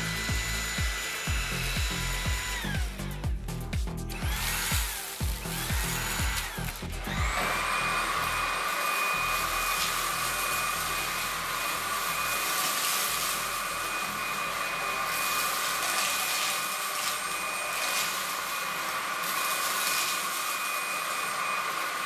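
Dreame V11 cordless stick vacuum's motor whining steadily, then spinning down about three seconds in. About seven seconds in it spins up again with a rising whine and runs steadily as its crevice nozzle sucks up seeds and grit.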